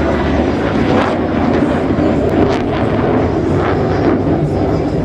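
Fighter jet engines flying a display pass: a loud, steady jet roar with a rough, crackling edge.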